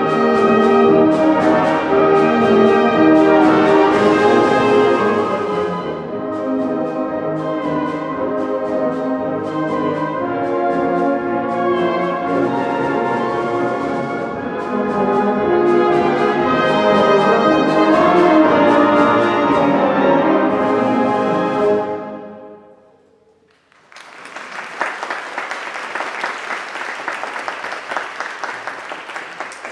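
Concert wind band playing, its brass to the fore, up to a final chord about 22 seconds in that dies away in the hall; about two seconds later the audience breaks into applause.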